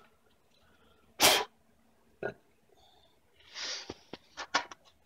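Handling noises while parts are moved around a car's front wheel hub: one loud short burst about a second in, a smaller one a second later, then a brief rustle and a few light clicks near the end.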